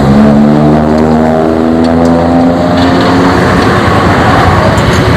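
Yamaha RX-King two-stroke single-cylinder motorcycle engine running through an exhaust whose muffler has been gutted, its pitch drifting slowly. The tone fades about three seconds in, leaving a steady rough running noise.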